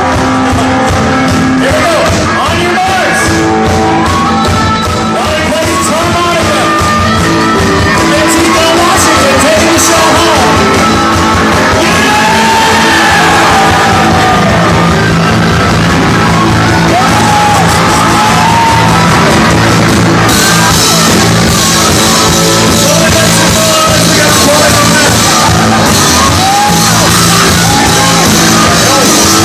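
Live country-rock band playing loud, with a harmonica played over the band in pitch-bending phrases while the crowd yells and shouts.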